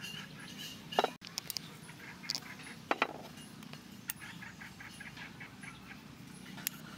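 Metal spoon clinking against a metal bowl and the rim of a clay mortar as ingredients are spooned in: a handful of sharp clinks, the loudest about a second in and about three seconds in.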